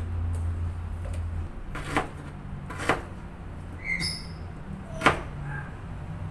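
Kitchen knife slicing ginger root on a cutting board: three sharp knocks of the blade on the board, about two, three and five seconds in. A steady low hum stops about a second and a half in.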